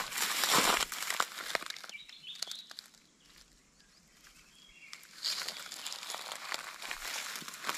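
Footsteps crunching and rustling through dry grass, loud for the first two seconds, quiet for a couple of seconds, then crunching again from about five seconds in.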